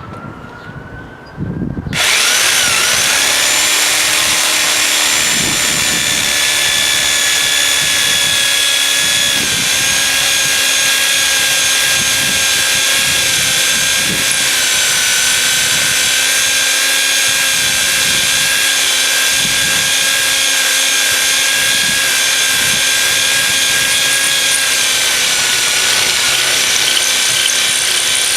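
Power drill boring through an old 1950s electrical receptacle. The drill spins up with a rising whine, then from about two seconds in runs loud and steady through the outlet, its whine dipping slightly now and then as the bit meets resistance.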